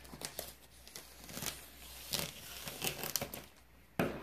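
Scissors slitting open a long plastic poly mailer: irregular snipping, crinkling and tearing of the plastic. A louder knock comes near the end.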